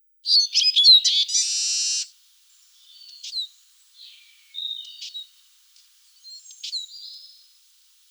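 Eurasian siskin singing: a rapid run of loud twittering notes, then a drawn-out buzzing note about a second in, followed by quieter scattered twitters and short slurred calls.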